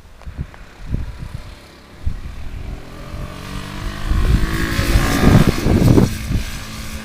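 A vehicle engine passing close by, building up to a loud peak about five to six seconds in and then easing off, after a few knocks in the first two seconds.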